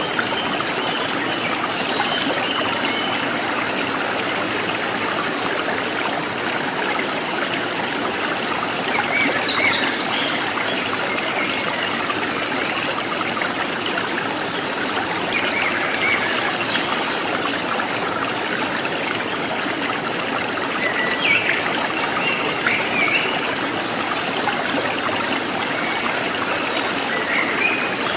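A forest stream trickling and splashing steadily, with a few short bird chirps scattered over it.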